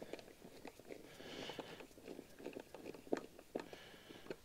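Hand screwdriver tightening the screws of a plastic mounting plate: faint, scattered small clicks and scraping.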